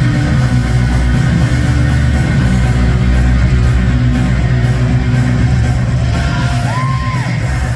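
Loud rock music with electric guitar over a heavy, steady bass.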